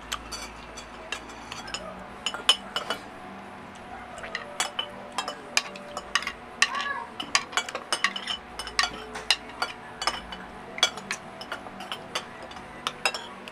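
Cutlery clinking against plates during a meal: many short, sharp clinks scattered irregularly throughout.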